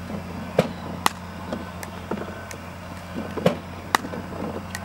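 Sharp pops of a pickleball paddle striking a hard plastic pickleball, around ten at irregular intervals, the loudest about half a second in and again near three and a half and four seconds. The player is blocking balls driven at the paddle shoulder with a chicken-wing block. A steady low hum runs underneath.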